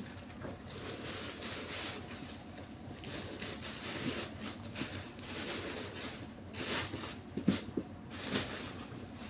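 Parcel packaging being handled and rustled while it is unwrapped, with a few sharper crinkles and knocks in the second half, the loudest about seven and a half seconds in.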